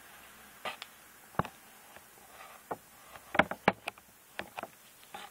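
Handling noise: scattered sharp clicks and taps over a faint room hiss, a few light ones at first and then a quick cluster of louder ones a little past the middle.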